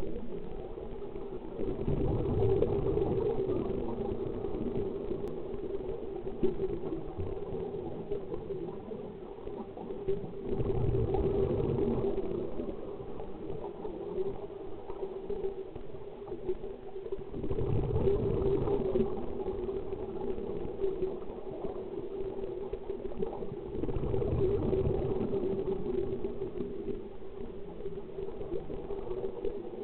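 Scuba diver breathing through a regulator underwater: exhaled bubbles gurgle in surges lasting a few seconds, about every seven seconds, over a steady low hum.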